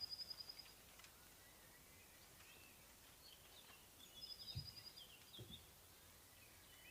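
Songbirds singing faintly: a fast, even, high trill near the start and again about four seconds in, with other birds chirping in between. Two soft low thuds about four and a half and five and a half seconds in.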